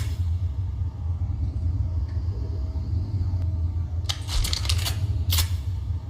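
A steady low rumble, with a quick cluster of sharp clicks or knocks about four seconds in and one more a little over a second later.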